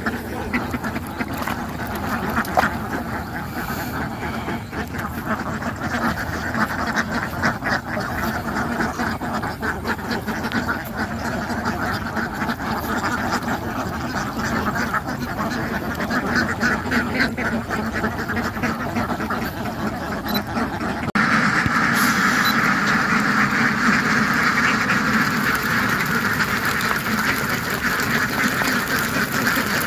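A flock of domestic ducks quacking continuously, many calls overlapping. About two-thirds of the way through, the quacking becomes louder and denser.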